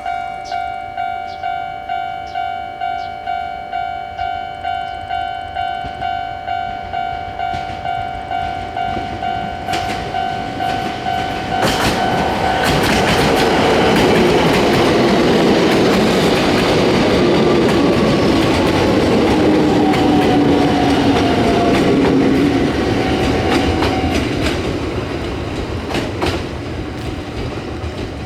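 A level-crossing warning bell rings in a steady pulse, a little under two strikes a second. About twelve seconds in, a Kobe Electric Railway 5000 series electric train passes close by, its wheels clattering over the rail joints with a slowly falling whine, and fades near the end.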